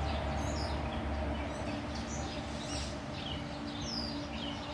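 Gray catbird singing a rambling run of short, varied chirps and whistles, many sliding in pitch, over a steady low hum.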